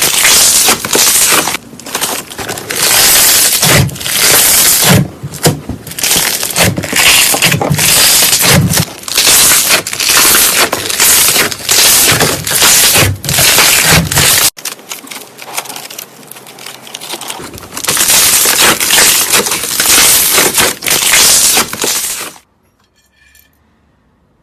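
Mirror putty being squeezed and pressed by hand, with dense, loud crackling and popping of trapped air bubbles in repeated squeezes. After a short break about two-thirds through, the crackling starts again, then stops about two seconds before the end.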